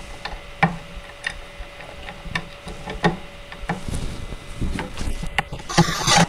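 Light clicks and taps of small screws and a small part being handled against a wooden crib frame, then near the end a short burst from a cordless drill driving a screw.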